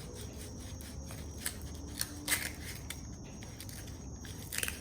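Sandpaper rubbing by hand over a spray-painted handlebar, distressing the fresh paint, in a series of short, uneven scratchy strokes, the strongest just after two seconds in and near the end.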